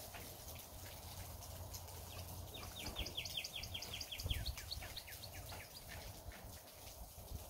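A bird singing a rapid trill of short falling notes, about seven a second, starting about two and a half seconds in and trailing off fainter after a couple of seconds. Underneath is a faint steady rain patter, with a soft low thump about four seconds in.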